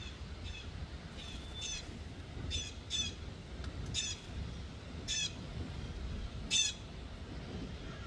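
Blue jay giving a string of harsh, squawking jay calls, about eight short calls at irregular intervals, the last one loudest.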